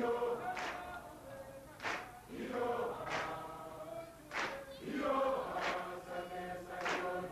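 A group of voices singing a chant-like choral song together, in several held parts, with a sharp beat about every second and a quarter.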